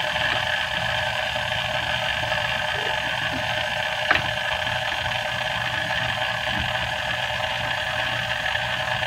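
Vintage Sunbeam stand mixer running steadily, its motor whirring as the two beaters churn thick fudge-brownie batter, with a single click about four seconds in.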